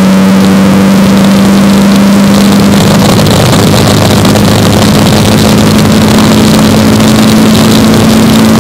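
Spec Racer Ford Gen3's engine running at high, steady revs, heard loud and close from an onboard camera, its pitch creeping slightly higher through the stretch over a constant hiss.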